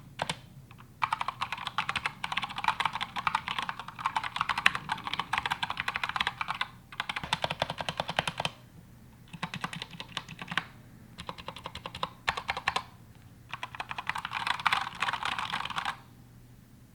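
Mechanical keyboard with newly fitted keycaps being typed on rapidly as a sound test: fast clacking keystrokes in about five bursts of one to five seconds, with short pauses between them, stopping about a second before the end.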